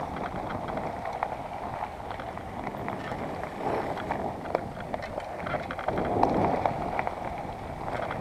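Enduro mountain bike riding down a dry dirt trail, heard from a camera on the bike: steady tyre and trail noise with frequent rattling clicks and knocks, and wind on the microphone.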